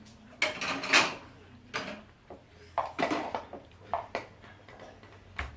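Stone pestle pounding pieces of cooked beef in a stone mortar: a series of irregular knocks, flattening the meat for dendeng batokok.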